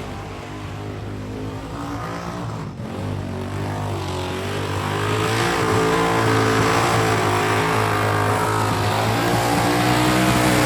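Burnout car's engine held at high revs during a burnout, with tyre noise swelling underneath. It grows steadily louder, with the hiss building from about four seconds in.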